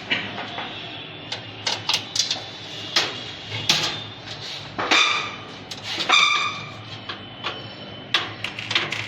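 Screws being driven with a screwdriver to fix a motherboard into a metal computer case: irregular clicks and small metallic knocks, with a brief high whine about six seconds in.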